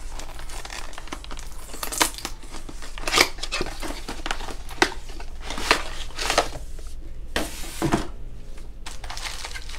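Plastic packaging and a cardboard box crinkling and rustling as they are handled and opened, with uneven rustles and a few sharper crackles.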